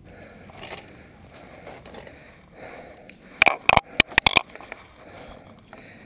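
Mountain bike rolling over a forest dirt trail with a low rumbling background. About three and a half seconds in comes a quick run of about six loud, sharp clattering knocks within a second as the bike and its camera mount jolt.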